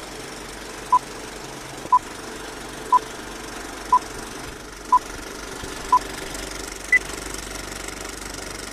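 Old-film-leader countdown sound effect: a steady film-projector clatter with a short beep every second, six at one pitch and a seventh, higher beep about seven seconds in.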